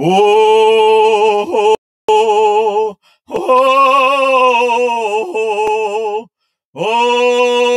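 A single voice singing a ceremonial song in long held notes with a quick wavering vibrato, broken into phrases by three short pauses.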